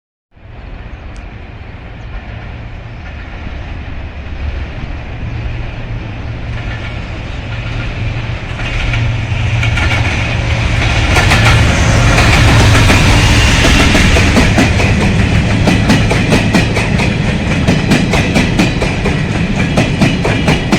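A diesel-hauled train approaching and drawing in: a steady low locomotive engine hum grows louder, and from about halfway through the wheels clack rapidly and evenly over the rail joints as the train reaches and runs past.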